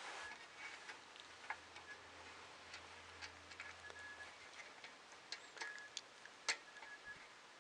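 Faint, scattered clicks and taps of small 3D-printer kit parts being handled while a rod is fitted into the X-axis assembly.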